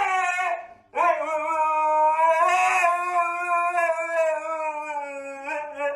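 A dog howling: one howl ends about half a second in, then after a short break a long, steady howl holds until just before the end.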